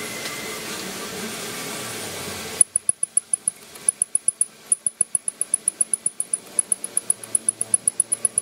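Hand-operated diesel fuel feed (priming) pump on a Nissan Navara D40's fuel filter housing being pumped by hand, giving a fast, even run of sharp high clicks, about seven a second, starting about two and a half seconds in. This is the faulty feed pump being tested.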